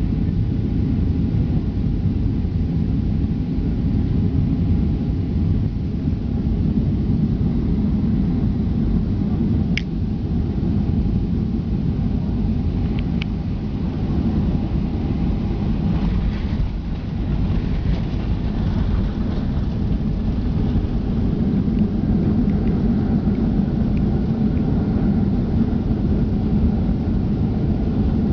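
Steady low rumble of a jet airliner heard from inside the passenger cabin as it lands, with a faint steady hum that fades out in the first third and a few brief clicks in the middle.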